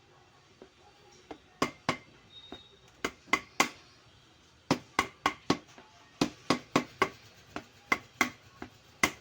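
Sharp knocks on a Toyota Etios bumper as it is worked on for repair, coming in quick runs of two to four, about twenty in all.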